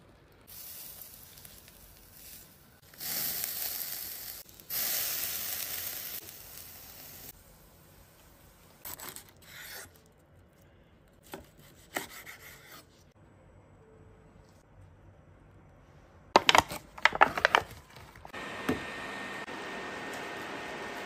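Kitchen cooking sounds: two long stretches of sizzling hiss, scattered light clicks, a quick run of sharp loud clicks about three-quarters through, then a steady sizzle from a pan of food simmering in sauce near the end.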